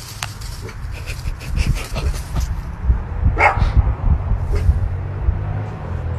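A dog whimpering and giving short yips and barks, with two sharper calls about three and a half and four and a half seconds in, over a low rumble with many small knocks.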